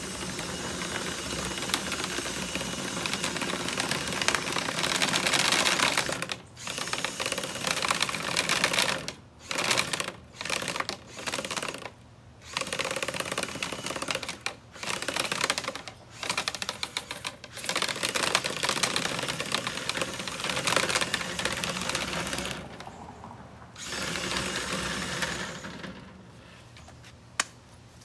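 A cordless drill turns a rotary brush rod inside a clogged dryer vent duct, making a fast, steady rattling clatter. The drill starts and stops many times from about six seconds in, and the noise dies down near the end.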